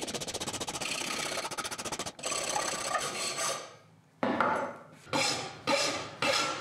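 Large hand file rasping across wrought iron held in a vise, squaring up the joint and taking off the scale. A long run of rasping at first, a short pause about four seconds in, then separate back-and-forth strokes about two a second.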